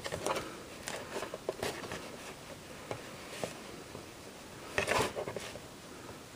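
Handling noise: light rustling with scattered clicks and knocks as things are moved about, and a louder rustle about five seconds in.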